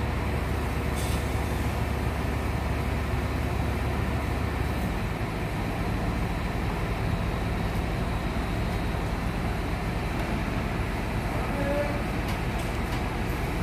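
Truck-mounted hydraulic crane's engine running steadily, driving the hydraulics while it hoists a steel load; its low drone shifts pitch about five seconds in.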